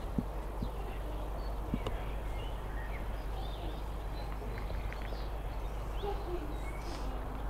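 Small birds chirping faintly in short scattered calls over a steady low outdoor background noise, with a few light knocks in the first two seconds.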